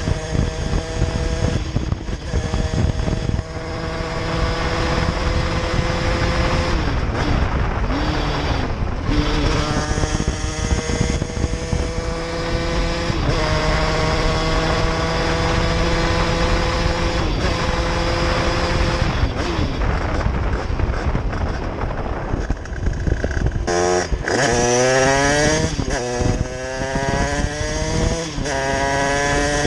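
Derbi moped's 70cc Airsal cast-iron two-stroke engine, with a 19 mm Dell'Orto carburettor and Bidalot high-route exhaust, pulling under way. Its pitch climbs slowly over several seconds and drops back at each change, several times. Near the end it rises quickly in short sweeps. Heavy wind noise on the microphone runs under it.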